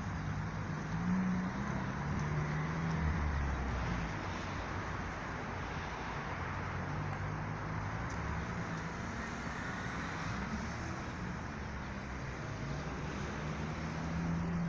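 Road traffic on a city street: a steady rumble of passing cars that swells a few times as vehicles go by.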